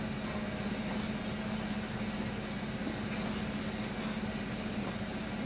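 Steady hum and hiss of the hall's air conditioning, unchanging throughout.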